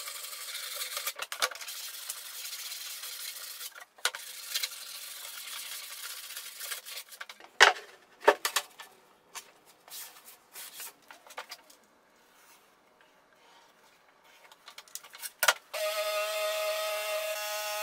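Sandpaper rubbing by hand along the edge of a plywood panel. It is followed by a few sharp knocks as plywood sheets are handled on the bench. Near the end a cordless jigsaw starts up and runs steadily, cutting plywood.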